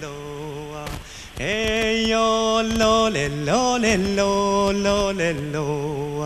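A man joiking in the Sámi style: long, held wordless notes that slide from one pitch to the next with a wavering vibrato, with a short break about a second in.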